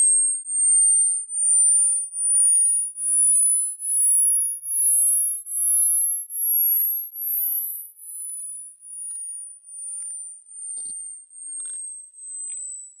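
Hearing-test tones: two pure high-pitched tones, one rising in pitch while the other falls, crossing near the middle. They swell and dip about three times every two seconds.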